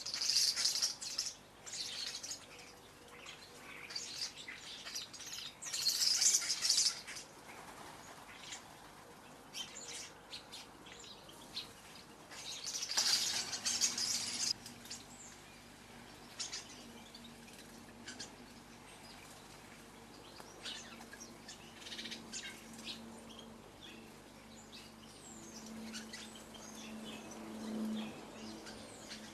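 Small garden birds chirping and twittering at a feeding spot, with louder flurries of chatter about a second in, around six seconds and around thirteen seconds, and scattered single chirps between.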